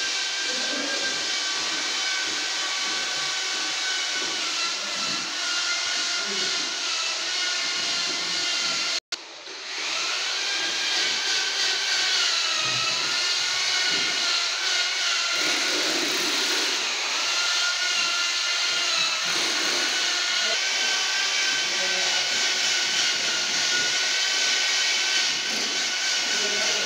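Steady mechanical whine and hiss of site machinery, with several high tones that drift slowly up and down in pitch.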